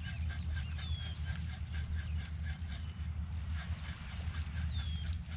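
Spinning reel being cranked, giving a rhythmic ticking of about five or six ticks a second over a low steady rumble. A short falling bird call sounds about a second in and again near the end.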